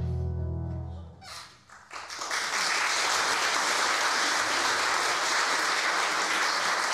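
The jazz quartet's final chord rings and dies away about a second in; after a short pause, audience applause starts and keeps going steadily.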